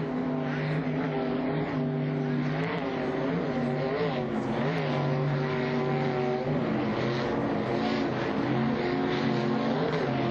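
Several offshore racing powerboat engines running flat out together, a steady mix of engine tones whose pitch shifts and wavers as the boats race past.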